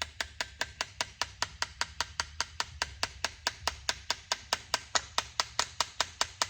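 Rapid, light hammer taps, about five a second, gently pecking a sharpened spring pin into its hole in a knife; driving this pin in is what puts tension on the knife's spring.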